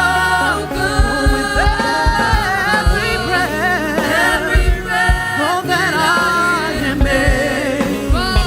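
Live church worship music: sustained, wavering singing voices over a band, with steady bass notes and kick-drum beats underneath.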